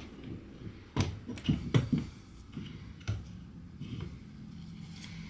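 A few sharp clicks and knocks of small hedge trimmer gearbox parts being handled and fitted together, several in quick succession about a second in and one more about three seconds in.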